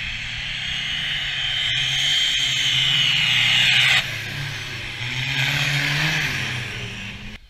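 Off-road racing vehicles driving past one after another through mud, engines revving hard with a high whine. The sound builds as the first vehicle closes in and drops off abruptly about four seconds in, then more engines rise as the next vehicles come by.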